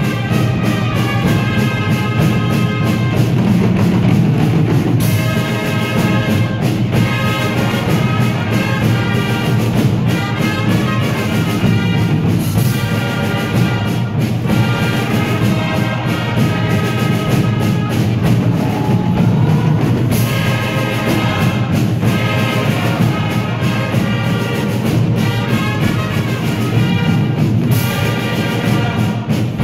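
Fanfare corps playing a march-like tune: massed fanfare trumpets over marching drums and a bass drum, with a crash about every seven or eight seconds.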